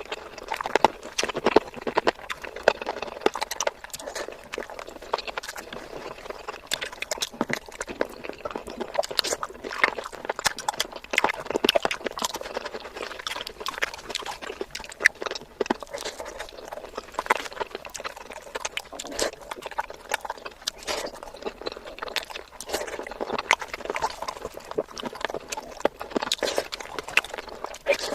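Close-miked mukbang eating sounds: wet chewing and lip smacks while eating curry, a dense run of irregular clicks and snaps.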